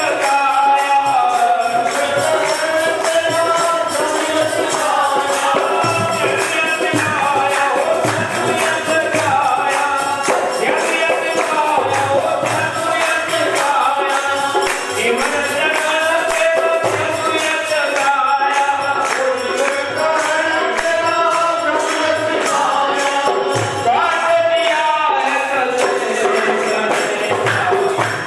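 Devotional Himachali kirtan singing: voices carrying a bhajan melody over a jingling percussion rhythm and regular drum beats.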